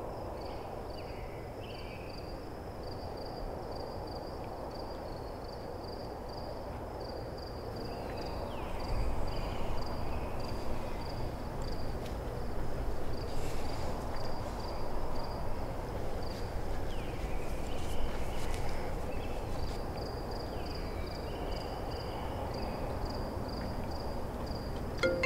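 Crickets chirping in a steady, evenly pulsed high trill over a low outdoor background rumble, which grows louder about eight seconds in.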